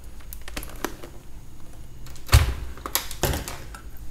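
Tools handled on a repair bench: a scatter of light clicks, then two heavier knocks a little past halfway and again about a second later.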